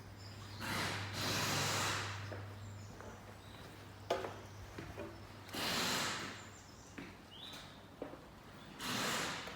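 Compressed air hissing from an air gun in three bursts, each lasting about a second, with a few light knocks and clicks between them over a steady low hum.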